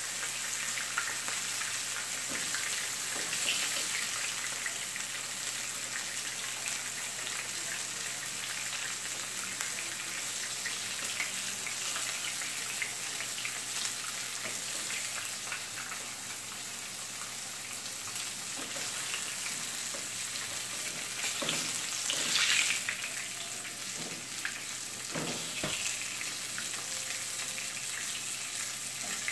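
Pieces of butterfish frying in hot oil in a skillet: a steady sizzle with fine crackling. A few knocks of a slotted spatula against the pan come about two-thirds to seven-eighths of the way through as the pieces are turned.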